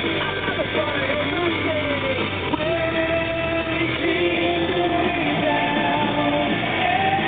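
Rock song with a singing voice playing on the car radio.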